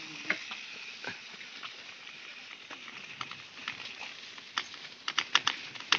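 Bicycles rolling along a wet dirt-and-gravel track: a steady hiss of tyres with scattered clicks and taps, coming thicker near the end.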